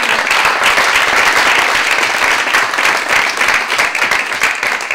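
Applause from a small group of people clapping their hands.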